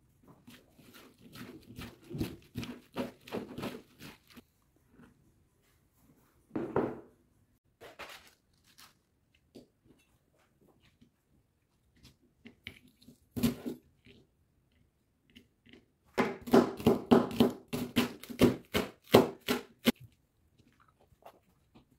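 Kitchen knife chopping leek on a plastic cutting board: a fast run of sharp chops near the end, the loudest part. Earlier come scattered light knocks and handling sounds, with one louder knock in the middle.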